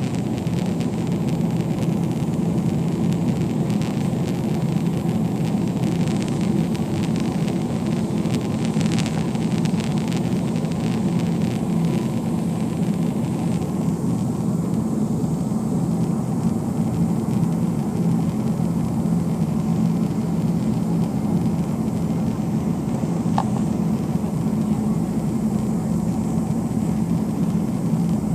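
Jet airliner cabin noise: a steady low drone of the engines and airflow heard from inside the passenger cabin, with some higher hiss easing off about halfway through.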